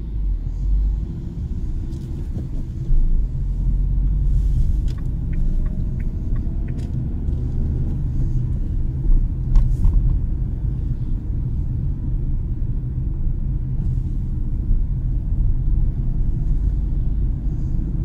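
Cabin noise inside a moving 2018 Dacia Duster with the 1.6 SCe four-cylinder petrol engine: a steady low rumble from the engine and the running gear on the road. A few light clicks come in the middle.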